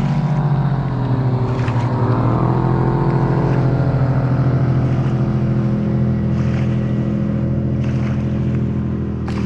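Motorboat with a swapped-in GM LS V8 running at speed on the river, a steady engine drone with a brief dip and recovery in pitch about two seconds in.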